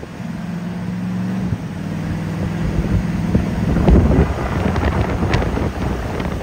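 Wind buffeting the microphone over a steady low motor hum. The wind swells toward the middle, with crackling gusts about four seconds in.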